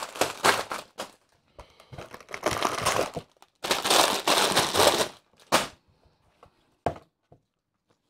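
Clear plastic bags of Lego pieces crinkling as they are handled, in several rustling bursts, with a couple of short light knocks near the end as the bags are set down.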